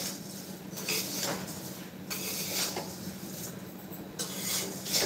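Kitchen work at a counter: scattered clinks, taps and scrapes of utensils handled by hand, over a steady low hum.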